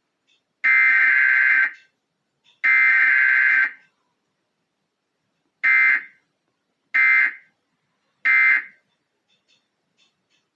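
Emergency Alert System SAME digital data bursts, harsh two-tone modem-like tones. Two bursts of about a second each end the header, and after a two-second pause three short bursts about a second apart send the end-of-message code.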